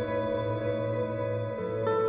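Background music: slow ambient music with long held tones, changing chord a little before the end.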